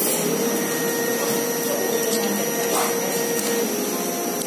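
Steady mechanical whirring noise with a faint steady hum, loud under everything, with a couple of faint short eating sounds as noodles are slurped.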